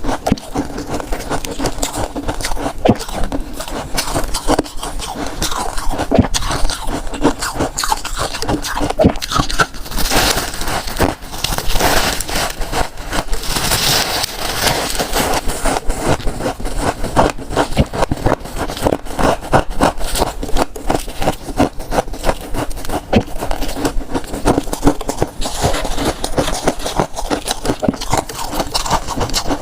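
Close-miked crunching and scraping of freezer frost being bitten and chewed, as dense, uneven crackly crunches without a break.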